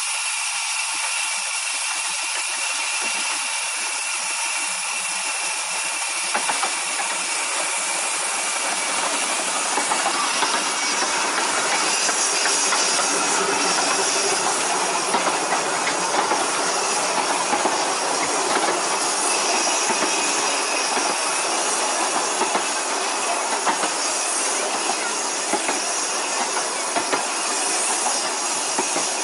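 15-inch gauge steam locomotives and their carriages passing close by, with a steady hiss of steam that grows louder and fuller about six seconds in. Occasional sharp clicks sound through it.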